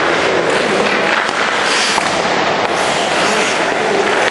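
Busy ice-rink noise: a dense, steady crackle of skate blades scraping and cutting the ice, with sticks and pucks clicking, echoing in the hall.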